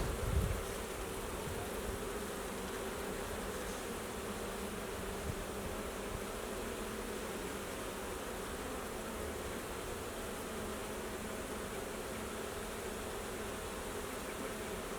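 Honeybees buzzing steadily in numbers around an open hive, with a brief low thump just after the start.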